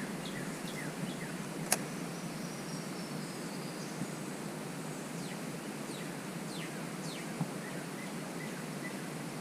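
Outdoor river ambience: a steady hiss of background noise with small birds chirping in short falling notes throughout, and a single sharp click about two seconds in.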